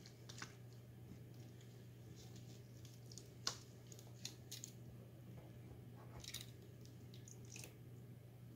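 Kitchen tongs lifting and shifting wet, dye-soaked superwash merino roving in a metal baking pan: faint wet squishing with a few sharp clicks of the tongs, the loudest about three and a half seconds in.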